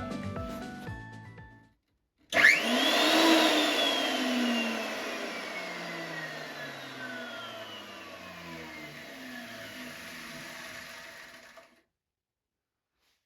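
RYOBI HL-6A jointer started up: its motor and cutter head whine up to speed in about a second, then it is switched off and spins down, the whine falling steadily for about eight seconds until it stops. Background music fades out just before it starts.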